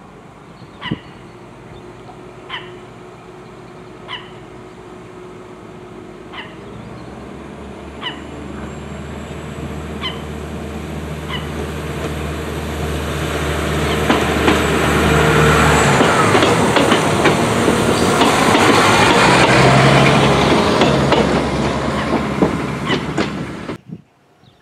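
Renfe Feve 2700-series diesel railcar pulling away from the station and passing close by. Its engine grows steadily louder, with wheels clicking on the track at the loudest part, then the sound cuts off suddenly near the end.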